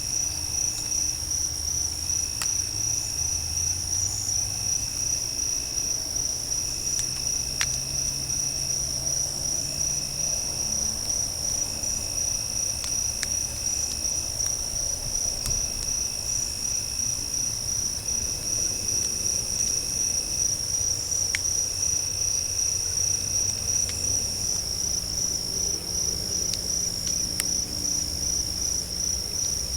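Night insect chorus: crickets trill steadily at a high pitch, with a lower buzzing call repeating every second or two. A few faint, sharp clicks sound now and then, one of them about eight seconds in.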